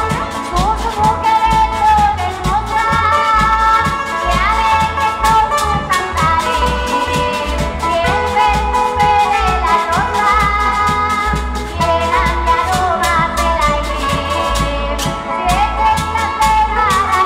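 A Canarian parranda folk ensemble playing: strummed guitars and timples with plucked lute-type strings, over a steady beat of drum and bass, with voices singing.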